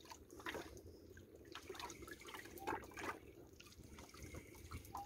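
Small waves lapping and splashing faintly and irregularly against the hull of a boat at sea.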